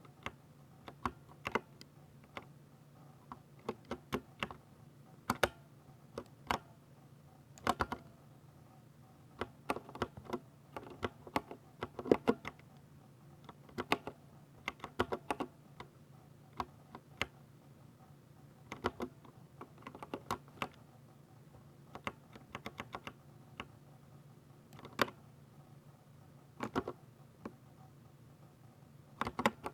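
Typing on a 60% mechanical keyboard with Ducky silver switches: keystrokes in irregular bursts, with short pauses between them.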